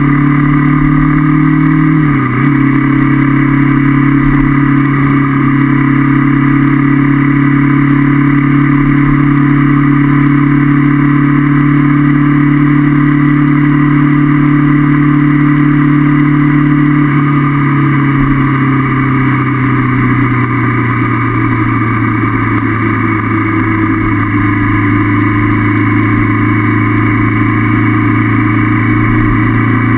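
Honda CB500F parallel-twin motorcycle engine running under way at steady revs. There is a brief dip in pitch about two seconds in, and just past the middle the engine note falls gradually as the revs drop, settling lower for the rest.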